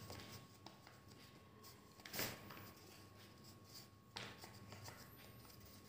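Faint rustling and crinkling of a sheet of paper being folded and creased by hand, with a short, louder crinkle about two seconds in and another about four seconds in.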